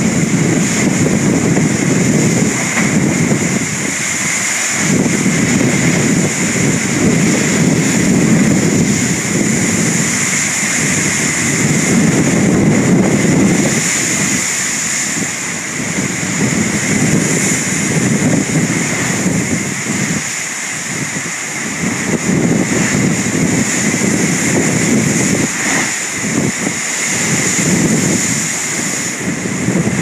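Heavy surf breaking against a rocky sea cliff, mixed with strong wind rumbling on the microphone. The low rumble swells and eases every few seconds under a steady hiss of spray and foam.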